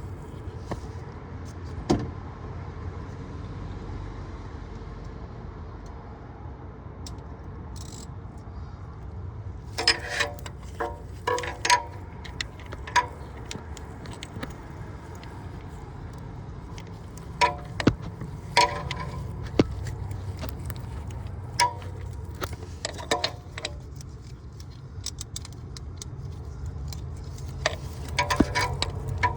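Metal hand tools clinking, with sharp clicks that ring briefly, in scattered clusters over a steady low hum.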